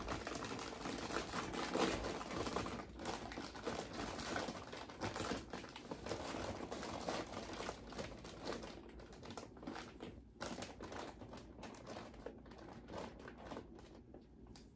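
Plastic snack bags crinkling and rustling as they are handled and shifted on a shelf: dense crackling for the first several seconds, then thinning to scattered crackles.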